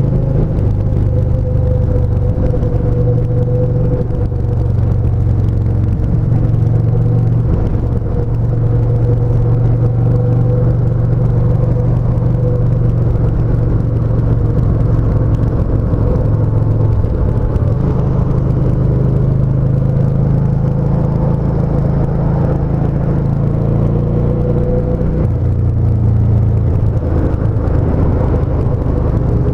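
Yamaha SCR950's air-cooled V-twin engine running at a steady cruise on an expressway, with road and wind noise. The engine note eases off briefly just past halfway and again near the end, as the throttle is changed.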